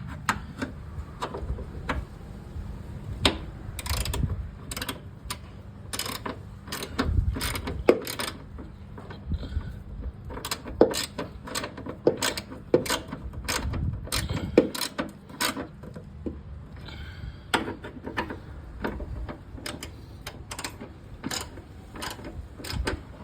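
Hand ratchet wrench clicking in short, irregular strokes as the bolts holding a rear axle bump stop are snugged up.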